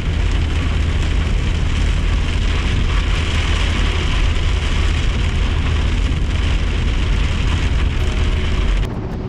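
Heavy rain hitting the windshield of a moving vehicle, heard from inside the cabin, over a steady low rumble of road and engine. The sound cuts off abruptly near the end.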